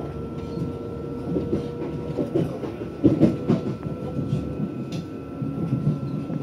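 Inside a Lastochka (Siemens Desiro) electric train running at speed: a steady rumble with faint constant whining tones. Around the middle, a run of irregular knocks and clatter from the wheels on the track is the loudest part.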